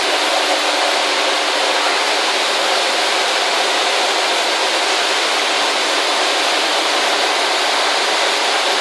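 Face-milling cutter on a large boring-and-milling machine cutting into a steel plate: a loud, steady hiss of the cut that keeps on without a break.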